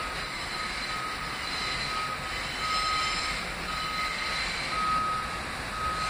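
A high electronic beep repeats about once a second over the low rumble of an approaching R68A subway train.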